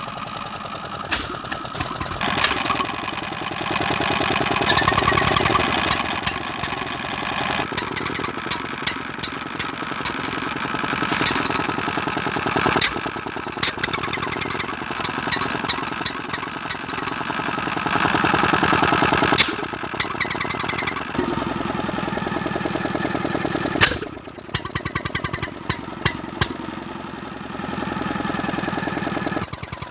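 A Petter M 4 hp single-cylinder stationary engine running steadily with a fast, even beat and sharp clicks over it. The sound gets louder and softer in stretches.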